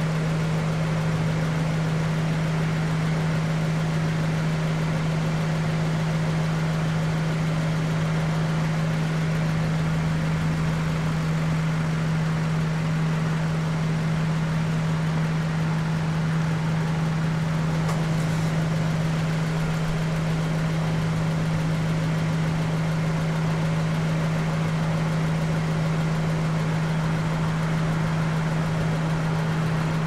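A steady low mechanical hum that neither rises nor falls.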